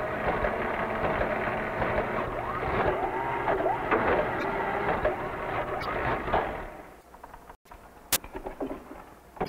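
Electric motors of Claude Shannon's Theseus maze machine running under the maze floor, their whirr rising and falling in pitch as they drive the electromagnet carriage, with clicking mixed in. The motor sound stops about seven seconds in, followed by a few sharp clicks.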